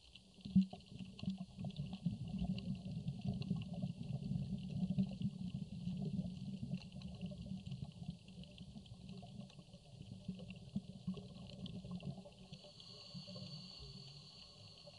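Underwater ambience picked up by a diving camera: a low rumbling with scattered crackling clicks. A faint steady high tone joins near the end.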